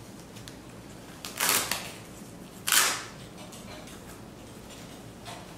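Two short rips of a Velcro strip on a convertible soft top's fabric flap, about a second apart, the first a little longer than the second.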